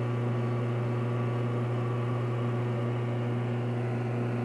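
Vacuum pump in a Robinair A/C recovery and recharge machine running with a steady, even hum. It is evacuating a truck's air-conditioning system to deep vacuum before the refrigerant charge.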